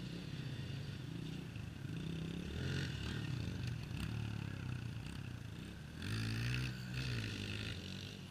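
Two small dirt bike engines running as the bikes ride around, the revs rising and falling. The engines are loudest about three seconds in and again around six to seven seconds in.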